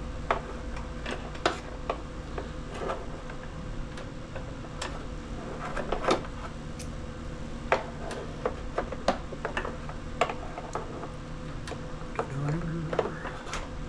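Irregular metallic clicks and taps of needle-nose pliers and a screw being worked at a riding mower engine's air filter cover, over a faint steady hum.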